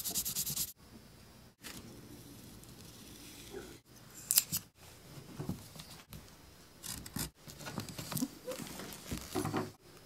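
Hand bookbinding work: short scraping and rubbing of a tool and hands on gold leaf and a leather-bound book, in snippets broken by abrupt cuts every second or two.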